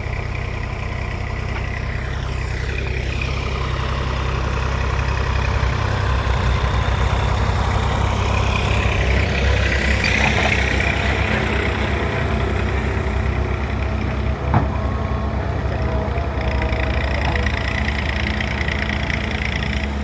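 Excavator working, its diesel engine running steadily and growing a little louder through the middle. A single sharp knock comes about three quarters of the way through.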